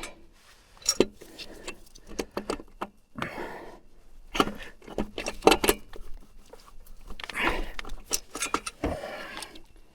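Metal parts and hand tools clinking, knocking and rattling in irregular sharp clicks as the ATV's CVT variator parts are fitted back together.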